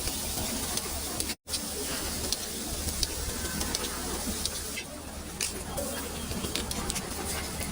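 Batter and egg sizzling in a hot pan, a steady hiss full of small crackling pops. The sound cuts out completely for a moment about a second and a half in.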